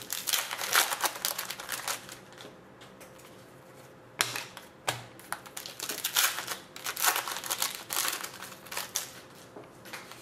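Foil trading-card pack wrapper crinkling and crackling as it is handled and torn open, in two spells of rustling with sharp little clicks: one at the start and a longer one from about four seconds in.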